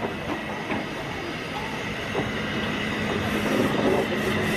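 Zillertal, an Austrian U class narrow-gauge steam tank locomotive, moving slowly past at close range while running round its train, getting louder as it draws alongside. A steady low hum joins in about two seconds in.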